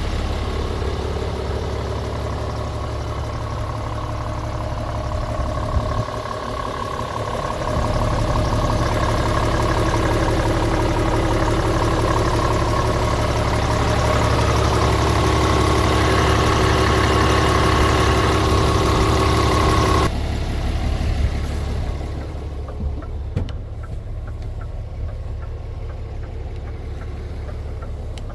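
Scania G450 truck's 13-litre six-cylinder diesel engine idling steadily with a low, even hum. About twenty seconds in it suddenly becomes muffled, heard from inside the cab.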